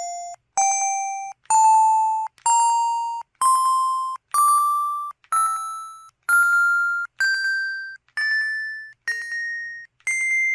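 PT-S120 mobile phone's keypad tones: about a dozen electronic beeps, one a second, each a step higher in pitch than the one before, like a rising scale.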